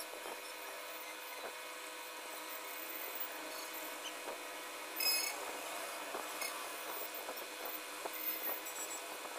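Graphite pencil scratching back and forth on drawing paper in quick, irregular shading strokes. A brief, louder knock comes about halfway through.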